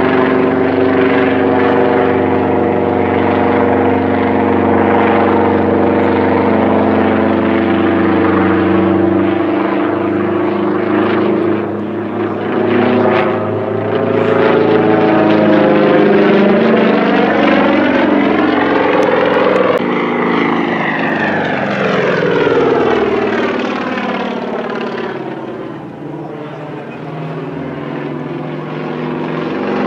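Aerobatic propeller plane's piston engine running at high power through aerobatic manoeuvres. The engine note is steady at first, then shifts in pitch and loudness, with a sweeping rise and fall in tone about twenty seconds in and two dips in loudness.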